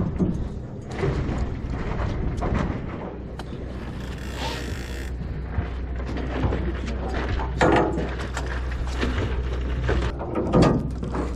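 Fishing reel being cranked, a run of mechanical clicking and ratcheting with scattered knocks, over a steady low hum. A brief hiss comes about four seconds in.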